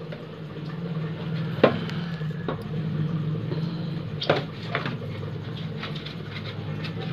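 A few sharp knocks and taps from a large plastic bottle being handled on a concrete floor, the loudest about one and a half seconds in and again about four seconds in, over a steady low hum.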